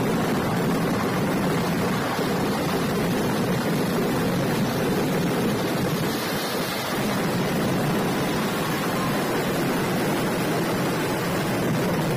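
A dense fireworks barrage of aerial shells and ground salutes going off so fast that the explosions blend into one continuous, steady rumble, with no single bang standing out.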